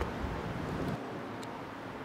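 Wind buffeting the microphone, a low rumble that drops away abruptly about a second in, leaving a steady hiss.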